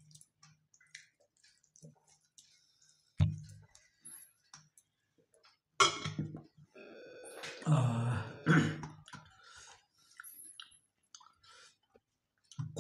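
Mealtime eating sounds: small clicks of fingers on a steel plate and chewing, a dull thump about three seconds in, then a sharp clack as a steel water bottle is set down on the table near the middle. A short vocal throat sound follows for a second or two.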